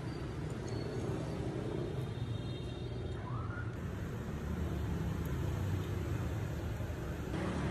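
Steady street traffic noise: motorbikes and cars running past with a low rumble.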